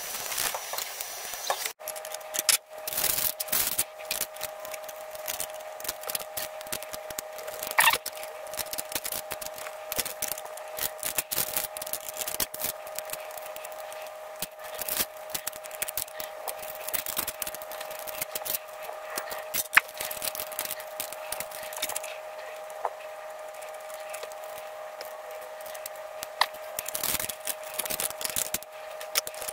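Small brass and steel parts clicking, tapping and scraping as a brass base plate and a Wilesco D52 steam engine are handled and screwed together, over a faint steady hum. In the first couple of seconds a cloth rubs over the brass plate.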